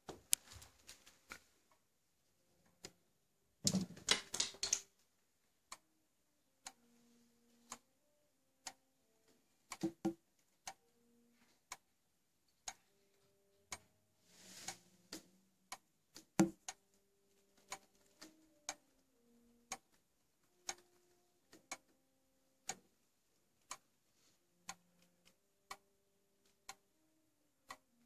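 Erwin Sattler Mechanica M3 precision pendulum clock ticking about once a second as its anchor escapement beats. A louder cluster of clicks and rustling comes about four seconds in, and more rustling near the middle.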